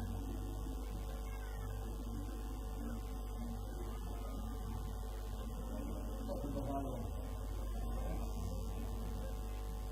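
Steady low electrical mains hum in the recording, with a faint indistinct background haze beneath it.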